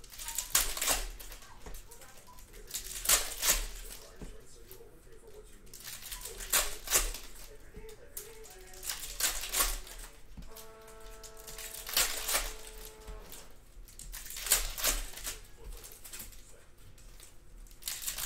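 Foil trading-card pack wrappers crinkling and tearing as packs are ripped open and the cards handled, in short crackly bursts every second or two. About ten and a half seconds in, a steady musical tone is held for nearly three seconds.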